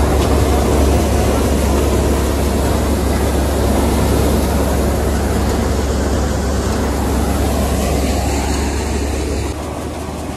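Tractor-driven thresher running steadily while threshing mustard: a loud mechanical drone of the drum and blower fan over the deep hum of the tractor engine that drives it. The sound drops somewhat in level near the end.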